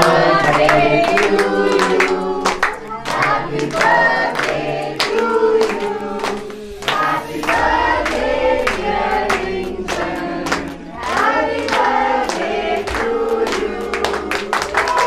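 A group of voices singing a birthday song, with hands clapping along in a steady beat.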